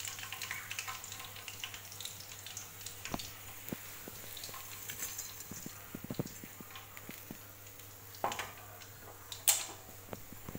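Faint sizzling and crackling of chicken threads deep-frying in hot oil, giving way to scattered light clicks of utensil handling. Two sharp knocks come near the end, the second and louder one about a second before the end.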